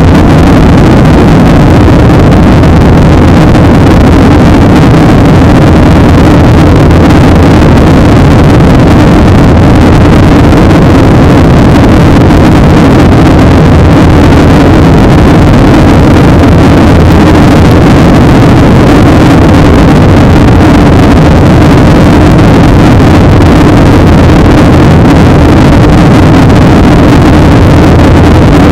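Steady, loud cabin noise of a Boeing 737-800 in flight: its CFM56-7B turbofan engines and the rush of air over the fuselage, heard from a window seat over the wing.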